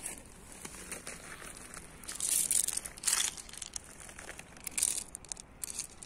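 Footsteps crunching on loose beach pebbles: a few irregular crunches, the strongest about two and a half, three and five seconds in.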